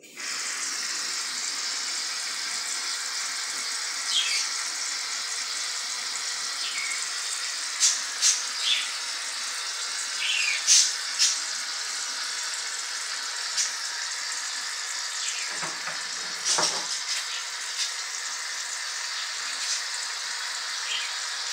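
Aerosol shaving cream spraying from the can in one long steady hiss, with a few short sputters as the foam spits out.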